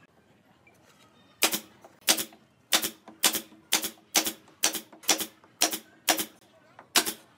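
DCA brad nailer driving nails into wooden boards: after about a second and a half of quiet, about a dozen sharp shots come roughly two a second, each with a quick second clack right after it.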